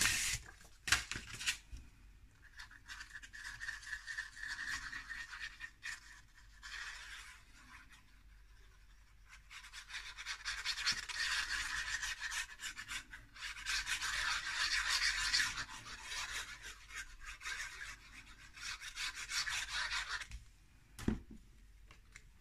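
Paper and cardstock being handled and rubbed by hand on a cutting mat: stretches of dry sliding and scraping, with a few light clicks and taps.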